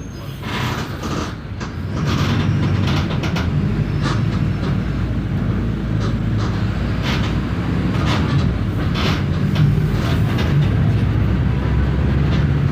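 Mercedes-Benz OF 1519 city bus with a Marcopolo Torino body under way: its front-mounted diesel engine runs steadily and gets louder about two seconds in, as if pulling harder, with body and window rattles clicking over it throughout.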